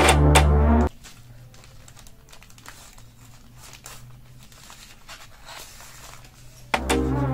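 Faint crinkling and rustling of packaging being handled, with small clicks. Background music stops about a second in and comes back near the end.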